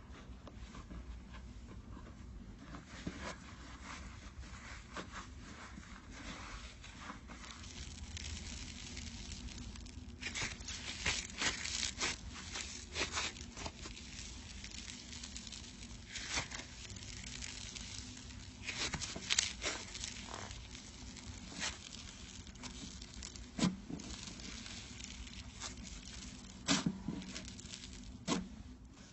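Crunchy slime being squeezed and pressed by hand, giving irregular crackling crunches and pops that come in denser bursts now and then.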